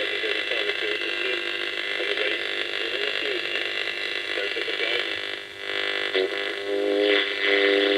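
Simple single-coil radio receiver with a ferrite-rod antenna hissing with static, a weak station's voice faint under it, as the rod is turned to find the direction of best reception. The sound dips about five and a half seconds in, and near the end steady whistling tones come up.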